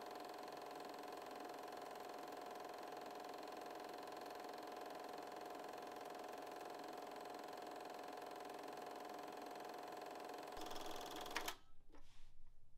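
Film projector running, a faint steady mechanical whir and clatter. Its sound changes about ten and a half seconds in, then cuts off abruptly near the end, followed by a few soft knocks.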